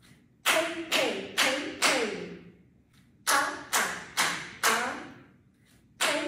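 Barefoot Kathak tatkar: one foot stamped flat on a wooden floor four times in a row, about two stamps a second, with a spoken rhythm syllable (ta, thay) on each stamp. Two rounds of four are heard with a pause between them, and a third round begins near the end.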